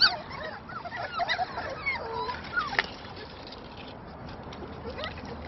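A litter of puppies whimpering and yipping in short, high, overlapping squeaks while jostling at a food dish, busiest in the first few seconds and then thinning out.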